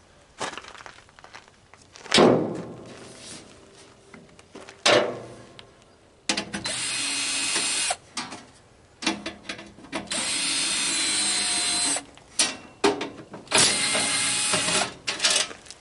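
Three knocks on a dehumidifier's casing, then a power drill running in three steady bursts of one and a half to two seconds each as the housing is taken apart.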